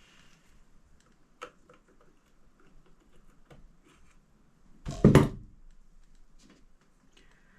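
Small clicks and taps of hand tools and small parts being handled on a workbench, with one louder, short clatter about five seconds in.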